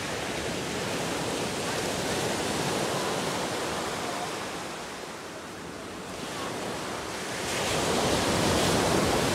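Ocean surf breaking and washing up the beach, rising and falling with the waves and loudest near the end.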